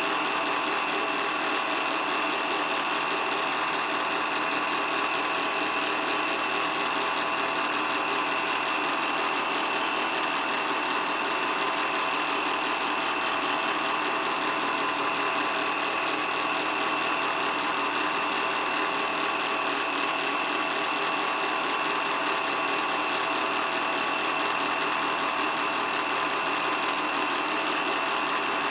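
8mm film projector running: a steady mechanical whirr and clatter from its motor and film transport, with a constant high whine over it.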